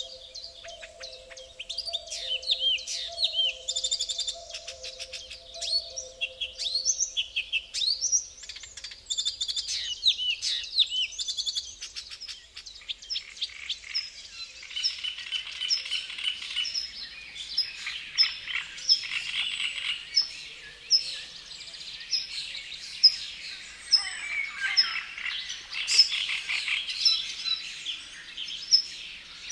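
Many songbirds singing at once in a dense, overlapping chorus of whistles and chirps. In the second half a short high note repeats about twice a second through the chorus.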